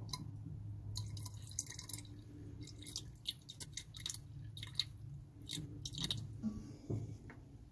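Distilled water poured from a plastic jug into the cells of a lead-acid deep-cycle battery to top off its water level: faint trickling with irregular small clicks and splashes, over a steady low hum.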